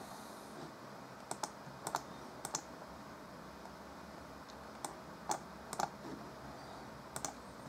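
About eight short, sharp, separate clicks from operating a computer's mouse and keyboard, spaced irregularly, over a faint steady background noise.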